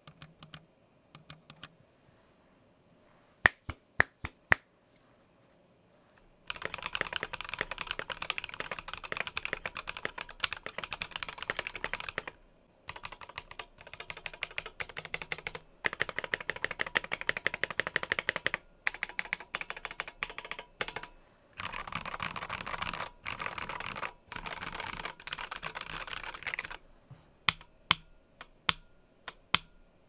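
Typing on a stock Keychron Q1 aluminium mechanical keyboard with Tecsee Ice Candy linear switches and PBT keycaps. First come a few separate key presses, the loudest about three and a half to four and a half seconds in; from about six seconds on there are runs of fast typing with short breaks, then single presses again near the end. Unmodified, the board sounds hollow and pingy, which the owner blames on a long thin strip of metal under the F-row ringing like a tuning fork.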